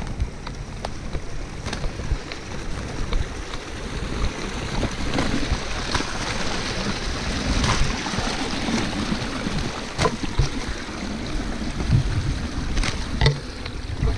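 Water sloshing and splashing, with scattered knocks and clicks of handling throughout.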